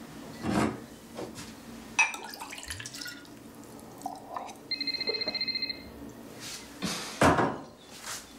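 Clatter of dishes and water at a kitchen sink, with sharp knocks about two and seven seconds in. About five seconds in, a phone rings for about a second: a rapidly pulsing electronic trill that starts again just after.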